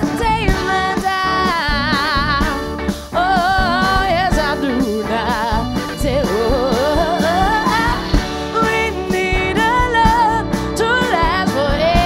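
Live soul-rock band playing loudly, with electric guitar, bass and drums, while a woman sings long notes with a strong wavering vibrato and sliding runs that carry no clear words.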